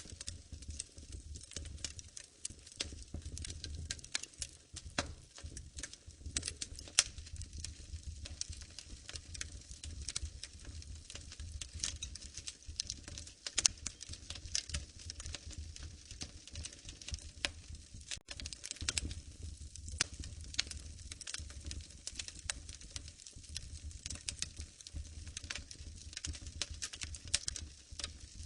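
Wood fire in a fireplace crackling: frequent irregular sharp pops and snaps over a low steady rumble of the flames.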